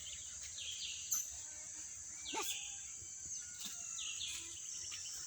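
Forest ambience: a steady high insect drone, with scattered faint high chirps and a short gliding call about halfway through.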